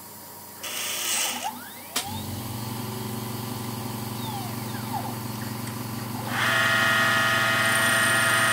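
Home-built CNC lathe working through an automatic bar-feed cycle. A burst of noise comes about a second in, then a sharp click, then a steady low hum under faint whines that rise and fall in pitch as the axes move. About six seconds in a motor starts and runs with a louder, steady whine.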